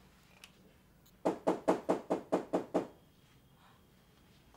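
Knocking on a door: a quick series of about eight raps, roughly five a second, starting about a second in.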